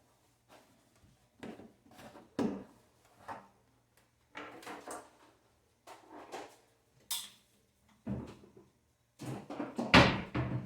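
Irregular knocks, clunks and scrapes of things being handled in a kitchen, the loudest cluster near the end.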